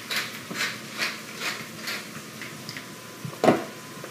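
A pepper mill grinding in short crisp strokes, about two a second, then one sharp knock about three and a half seconds in, over a faint steady sizzle of ground beef frying in a stainless steel skillet.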